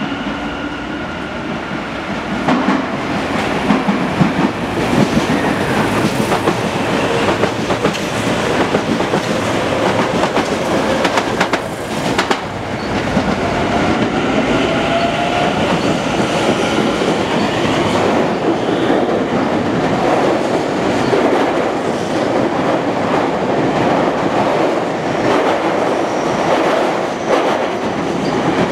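Tobu 50050 series electric commuter train pulling out and picking up speed past the platform, its wheels clattering over rail joints and points. A faint rising motor whine comes in around the middle.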